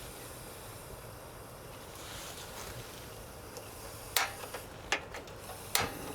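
Steady outdoor background rush, broken by three sharp clinks of cookware being handled, at about four, five and six seconds in.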